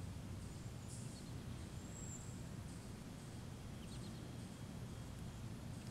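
Outdoor ambience: a steady low rumble with faint, high-pitched bird chirps, a few short notes about a second in and around two seconds, and a quick cluster of three or four notes near four seconds.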